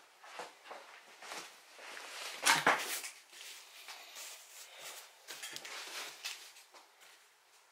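Cardboard box being handled and set down: scattered scrapes, rustles and light knocks, the loudest a scraping rush about two and a half seconds in.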